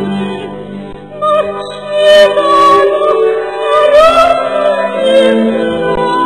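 Slow background music: a singing voice holds and glides through a melody over sustained low accompaniment notes, growing louder about two seconds in.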